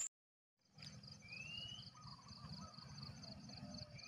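A moment of dead silence at a cut, then faint rural dawn ambience. A bird gives a rising whistled call twice, over a high chirping that pulses about three times a second and a low rumble.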